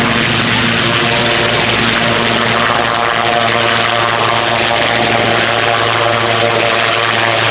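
Helicopter engine and rotor running steadily, a loud continuous drone with a low hum underneath.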